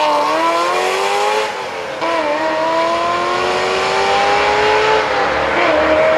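A Ferrari 348's V8 and a second sports car accelerating flat out from a launch, engine notes climbing in pitch through the gears. There is a brief drop at an upshift about one and a half to two seconds in, a long climb, and another upshift near the end.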